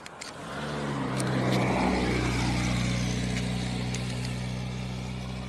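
A car engine running steadily. The sound comes in about half a second in, swells to its loudest around two seconds, then eases slightly.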